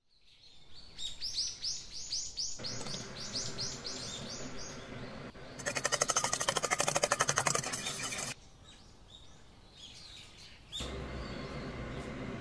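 A bird chirping in a quick series of rising notes, then a fork beating eggs against a stainless steel bowl in fast, even strokes for about three seconds, the loudest sound here. A steady low hum comes in near the end.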